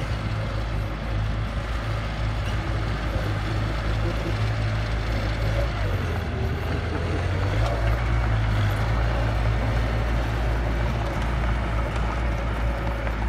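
Diesel engine of a small Mitsubishi crawler bulldozer running under load as its blade pushes a pile of soil. It eases off around six seconds in and picks up again, a little louder, near eight seconds.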